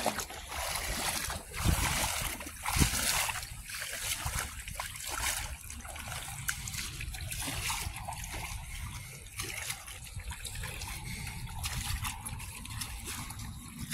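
Shallow seawater splashing and trickling around legs wading through it, with two louder thumps about two and three seconds in.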